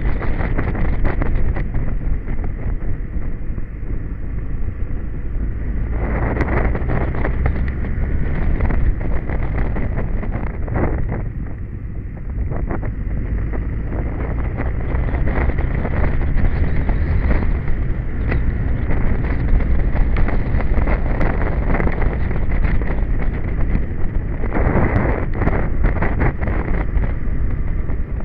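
Royal Enfield motorcycle's single-cylinder engine running steadily while riding uphill, heard from the bike itself under heavy wind buffeting on the microphone. Stronger gusts of wind noise come about six seconds in and again near the end.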